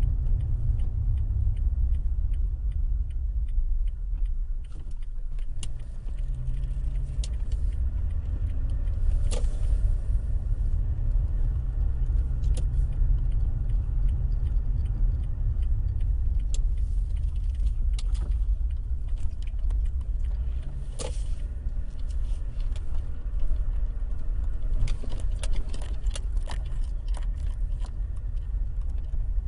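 Toyota Tacoma pickup running with a steady low rumble, over which light rattling clicks and squeaks come at irregular moments, several bunched together near the end. The rattle comes from the rear passenger side; the owner can't find its source and wonders whether the bed, once removed for body repair, has come loose.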